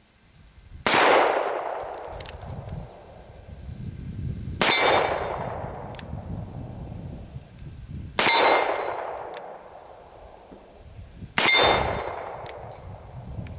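Four shots from a Colt New Service revolver in .38-40 Winchester, fired slowly single action about three and a half seconds apart, each with a long fading echo. The last three carry a ringing metallic clang, typical of a steel plate target being hit.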